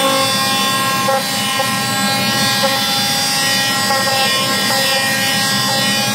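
Hand-held floor sander running at full speed while sanding a floor corner: a steady high motor whine with several tones over a rough grinding noise.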